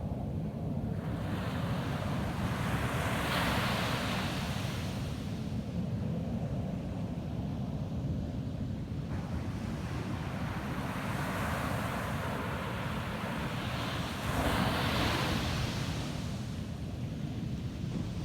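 Ocean waves breaking and washing up a sandy beach: two long swells of surf hiss rise and fade, the second the louder, over a steady low rumble.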